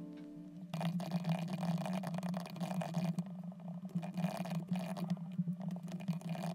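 Fast typing on a MacBook Pro's laptop keyboard: many quick, irregular key clicks that start about a second in, over a steady low hum.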